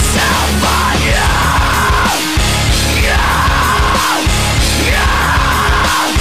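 Loud background music with a steady, heavy low end and a high wailing line that sweeps up and falls back every couple of seconds.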